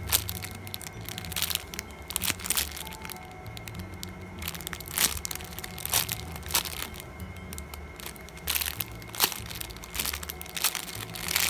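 Clear plastic packaging bag crinkling and crackling in irregular bursts as a foam squishy is squeezed through it, over background music.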